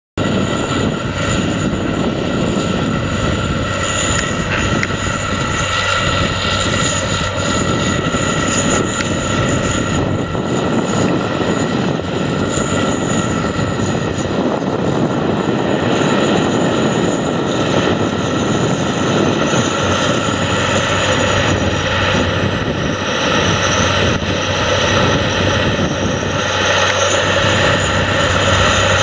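Challenger MT865C tracked tractor's six-cylinder diesel engine running steadily under load while pulling a reversible plough through the soil.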